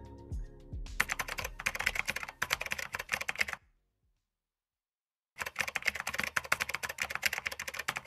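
Fast computer-keyboard typing used as a sound effect: a run of rapid keystrokes, a silent pause of about a second and a half, then a second run. The tail of the music fades out in the first second.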